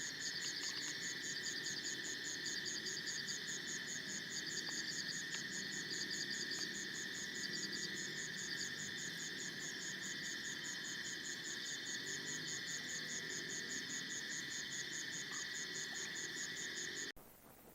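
Night chorus of crickets and other insects: a steady, evenly pulsing high trill over continuous buzzing tones, with groups of shorter chirps in the first half. It cuts off abruptly near the end.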